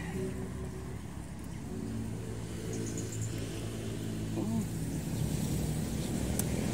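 A motor vehicle's engine running steadily, a low even hum of road traffic.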